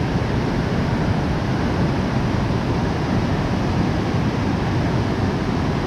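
Steady rushing of fast-flowing water where a strong current runs past the rocks at the shore.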